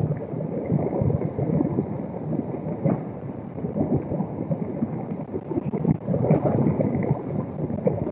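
Strong storm wind gusting and buffeting the microphone: a loud, uneven rumble that swells and eases.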